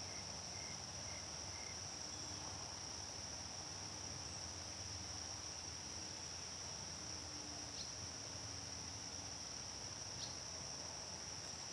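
Steady, high-pitched trilling chorus of insects in a summer meadow. It is continuous and unbroken, with two faint short chirps about eight and ten seconds in.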